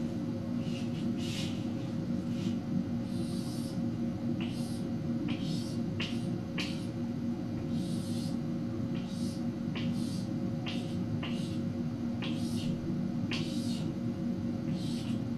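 Chalk drawing on a blackboard: many short, irregular scratchy strokes as lines are drawn, over a steady low hum.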